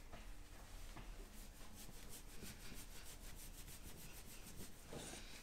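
A towel being rubbed briskly over a wet miniature schnauzer's coat to dry it: faint, quick rhythmic strokes, several a second.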